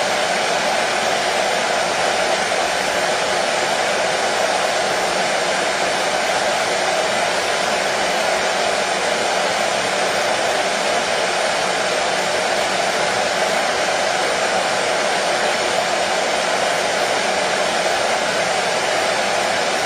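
Hair dryer running steadily: an unchanging whooshing blow of air with a fan hum.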